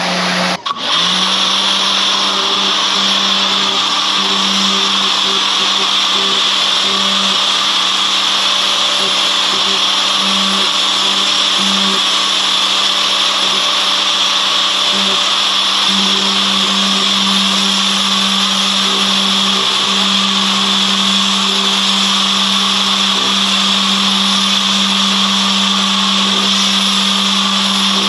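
Pressure washer running steadily, a motor hum under the loud hiss of the high-pressure water jet, with a brief cut about a second in.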